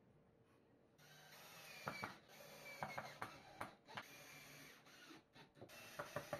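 Cordless drill running and boring a hole into a plywood panel, in two runs: the motor starts about a second in, stops briefly past the middle and starts again near the end, with sharp clicks and knocks over the motor's whine.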